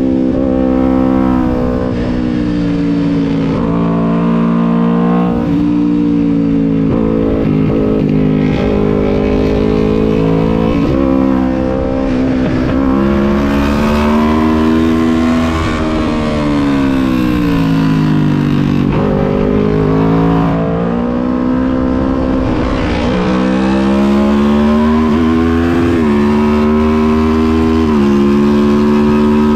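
Kawasaki Ninja 400 parallel-twin engine under race throttle, climbing in pitch and dropping sharply at a string of quick upshifts. About halfway through the revs fall away slowly over several seconds as it brakes and downshifts for a corner, then climb again with more upshifts near the end.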